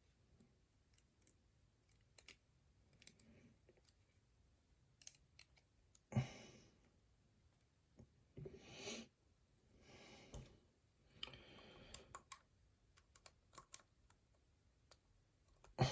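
Faint, scattered small metallic clicks and scrapes of hand tools prying at a lock's retaining clip during disassembly, with a few louder, longer scrapes around the middle.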